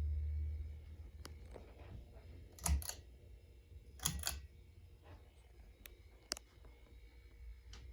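Low hum from a Casablanca Delta II ceiling fan dying away within the first second, then scattered sharp clicks, the loudest coming as a quick pair about three seconds in and another about four seconds in.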